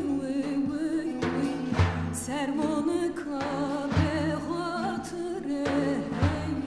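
A woman singing a Kurdish Alevi song in a wavering, ornamented line over steady held notes from a bağlama, with beats on a daf frame drum.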